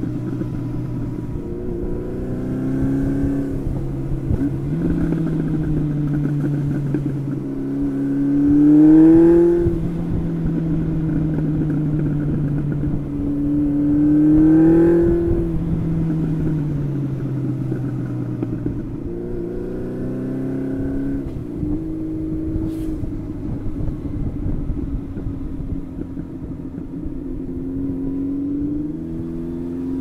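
1992 Honda CB750 Seven Fifty's carbureted inline-four on the move, heard from the bike. The engine note climbs under acceleration and drops back several times, loudest about nine and fifteen seconds in, and settles into a steady run in between.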